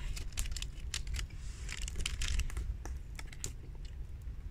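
Plastic packet wrapper crinkling and clicking irregularly as it is handled and folded, with a denser crinkle about two seconds in, over a steady low rumble.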